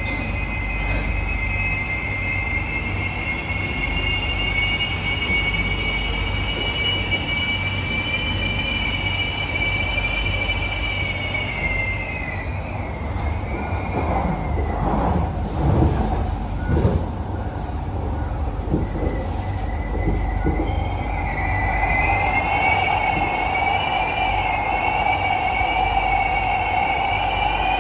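SMRT C151B metro train running with its steel wheels screeching on the rails: a loud, high squeal over a steady rumble. The squeal dies away about twelve seconds in, a few knocks follow, and it comes back about twenty-one seconds in with a lower steady whine beneath it.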